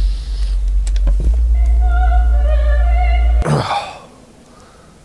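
Music: a loud, deep, steady rumble, joined about a second and a half in by a held chord of steady tones. Both cut off suddenly about three and a half seconds in, followed by a brief rush of noise.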